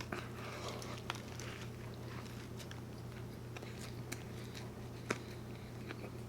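A person chewing food with the mouth close to the microphone: soft wet smacks and clicks, the sharpest about a second in and about five seconds in, over a steady low hum.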